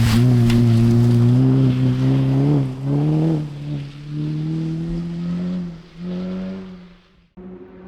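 Rally car engine running hard on a gravel forest stage, its note dipping and picking up again a few times as it shifts and lifts, then fading as the car pulls away. The sound cuts off suddenly near the end.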